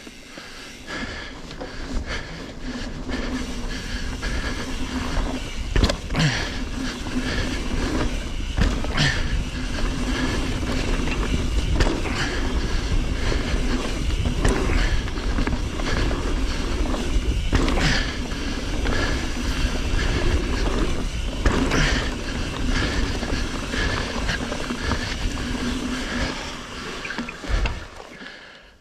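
Mountain bike riding fast down a dirt trail: knobbly tyres rolling and buzzing over the dirt with heavy wind rumble, and the bike rattling with a sharp clatter over a bump or landing every few seconds.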